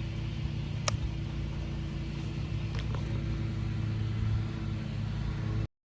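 A steady low motor hum with two brief sharp clicks; it cuts off suddenly near the end.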